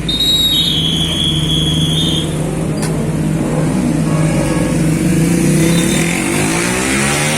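Large bus engine running close by, its note rising toward the end as it revs up. A single high, steady tone sounds for under two seconds near the start.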